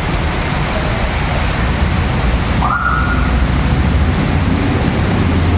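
Steady rush of wind buffeting a phone's microphone, with a heavy low rumble. A brief high tone rises and then holds about halfway through.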